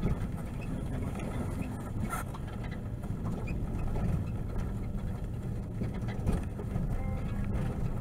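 Steady low rumble of a vehicle's engine and tyres, heard from inside the cabin while driving.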